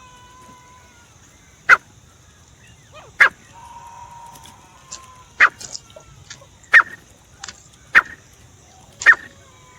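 Francolin (teetar) calling: a series of short, sharp, loud notes repeated about every second and a half, with a faint thin whistle in between.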